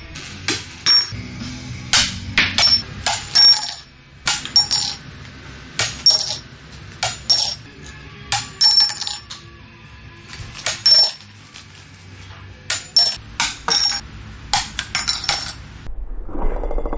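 Coins clinking against drinking glasses again and again: sharp, ringing metal-on-glass clinks in quick clusters of two to four. Background music plays beneath. About a second before the end, the clinks give way to a different, denser sound.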